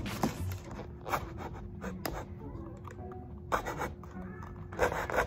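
Scissors cutting and scraping into a thin plastic sports-drink bottle: irregular scratching with a few sharp crackles and clicks of the plastic.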